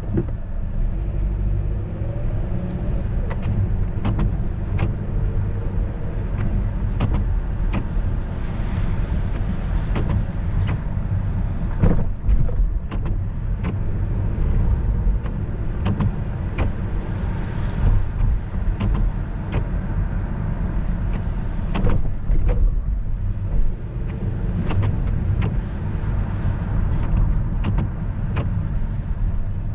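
Car driving on wet streets, heard from inside the cabin: a steady low rumble of engine and tyres on the road, with faint pitch shifts as it speeds up and slows, and scattered sharp ticks and knocks throughout.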